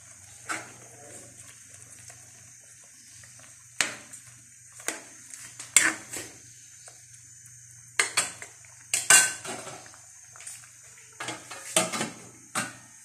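A metal ladle clanking and scraping against a steel wok while a simmering mung bean stew is stirred, in a string of separate clanks. Then a steel pot lid clatters onto the wok.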